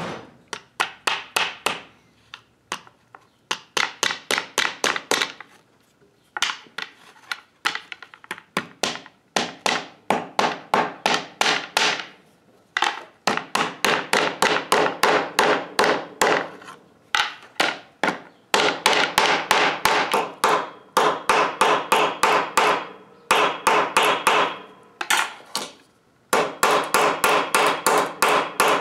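Wire being hand-wound into a coil around a steel rod to make flat-belt lacing: quick sharp metallic clicks, about five a second, in runs of a few seconds with short pauses between.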